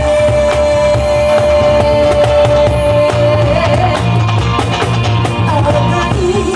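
Live rock band music: a female voice holds one long sung note for about three seconds, then wavers into the next phrase, over electric guitar, a steady bass line and cajón beats.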